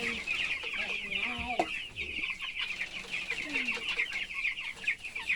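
A flock of chickens in their coop, a dense chorus of rapid high peeping and chirping throughout, with a few lower clucks and calls in the first couple of seconds.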